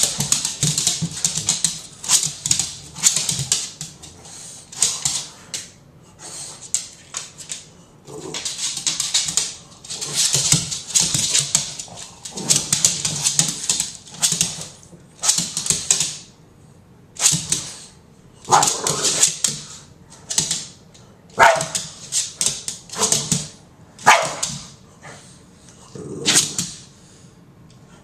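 Boston Terrier giving repeated short, breathy play barks in irregular bursts with pauses between them; a few later ones carry a whining pitch.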